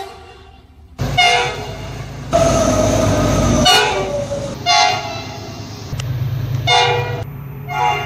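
2800 class diesel locomotive horns sounding repeatedly, several short blasts and one long blast of about a second and a half, over a steady low rumble from the locomotive. The sound changes abruptly a few times where clips are spliced together.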